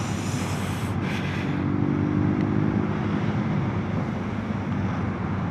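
Motorcycle engine running at low speed, with tyre and wind noise, as the bike rolls over a metal-panel road surface.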